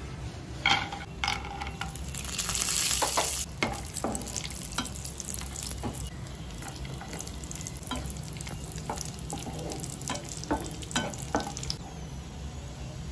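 Cashews and almonds frying in hot oil, with a burst of sizzling about two seconds in as they go into the pan. After that a steel spoon stirs them, scraping and clinking against the pan many times.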